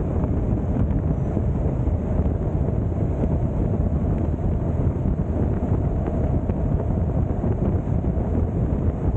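Wind buffeting the microphone while riding, a steady low rumble with the noise of the moving vehicle mixed in.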